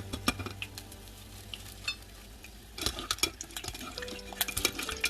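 Frozen potato fries frying in hot oil, crackling, with the clicks and scrapes of a utensil stirring them in the pan; the crackling grows denser about three seconds in.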